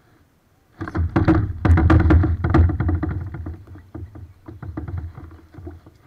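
A burst of knocking and rattling from the kayak and fishing gear over a low rumble as the angler sweeps the rod back and reels. It starts about a second in, is busiest for the next two seconds, then thins out.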